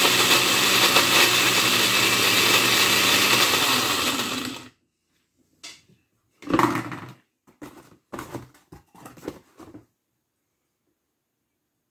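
Countertop blender with a glass jar running steadily, churning a pack of playing cards into shreds, then cutting off abruptly about four and a half seconds in. After it stops, the lid is pulled off and the glass jar is lifted from the base with a few short knocks and clatters.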